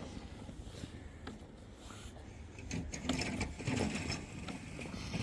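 Kids' 12V ride-on toy excavator's small electric drive motors and plastic gearboxes whirring as it moves, with a few faint knocks.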